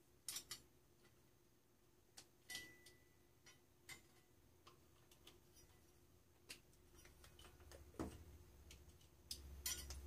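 Faint, scattered clicks and small metallic clinks of needle-nose pliers and push-on wire connectors being worked off and onto the terminals of a microwave oven's high-voltage capacitor, with a low rumble of handling near the end.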